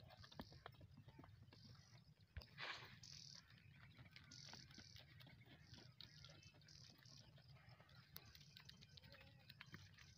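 Near silence: faint scattered ticks of footfalls on dry sandy, stony ground, with a brief swish about two and a half seconds in and a few faint high chirps.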